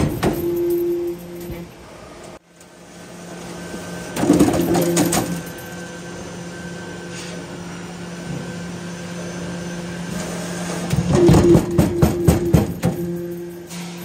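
Perforating press of a cable tray roll forming line running, punching slotted holes in galvanized steel strip. Bursts of rapid metallic clattering come near the start, around four seconds in and again from about eleven to thirteen seconds, over a steady machine hum.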